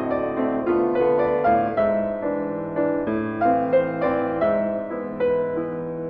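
Background music: a piano playing a gentle melody over chords, with new notes struck every half second or so.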